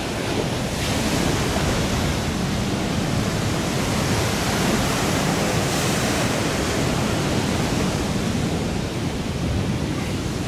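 Ocean surf breaking and washing up the shore, a continuous loud rush of water that swells a little around the middle.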